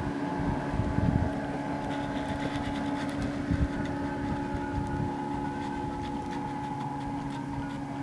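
A motor running at a steady pitch, a constant mechanical hum, with some low rumbling in the first second or so.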